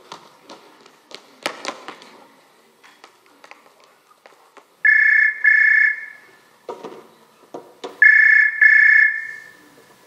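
Telephone ringing over the theatre's sound system, two double rings, the first about five seconds in and the second about eight seconds in. Before it come a few knocks and footsteps on the stage boards.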